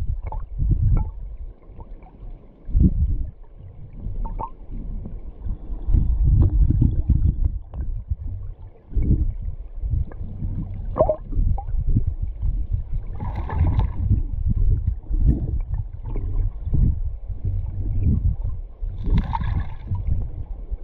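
River current heard from inside an underwater camera housing: a muffled, surging low rumble of flowing water that swells and fades every second or two. Two brief higher sounds stand out, about 13 and 19 seconds in.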